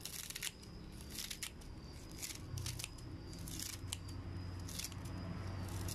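Kitchen scissors snipping napa cabbage leaves into small pieces: a string of crisp, irregular cuts, roughly one or two a second.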